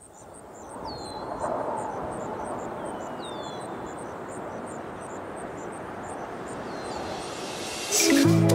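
Open-air countryside ambience fading in: a steady rush of background noise, a high insect-like chirp repeating a few times a second, and a few short bird calls falling in pitch. Music with sustained notes starts near the end.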